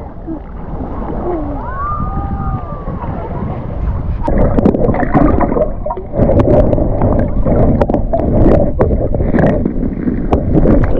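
Lake water sloshing and splashing around someone wading, with wind on the microphone; the splashing gets louder and choppier about four seconds in. Faint voices call out in the first few seconds.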